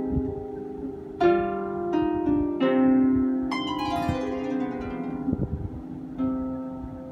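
Lever harp plucked by hand, single notes and small chords ringing on and overlapping as they die away. A bright high note comes in about three and a half seconds in, and the playing fades toward the end.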